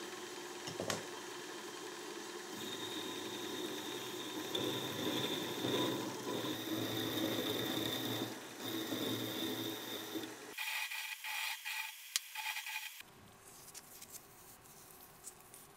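Small bench metal lathe running while the cutting tool bores a metal part, a steady grinding noise with a thin high whine during the cut. About ten seconds in it stops, followed by a few clicks and then faint handling of the part.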